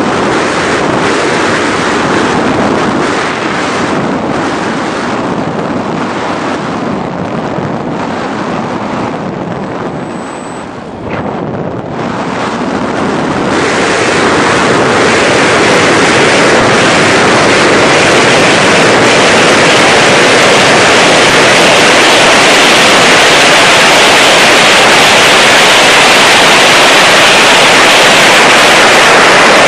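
Wind rushing over the onboard camera microphone of a Multiplex Twin Star 2 model plane in flight, mixed with the noise of its twin electric motors. It dips briefly about ten seconds in, then grows louder and stays steady.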